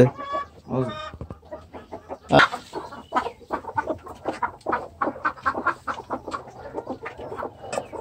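Village chickens clucking, a quick run of short calls several times a second, one louder call about two and a half seconds in.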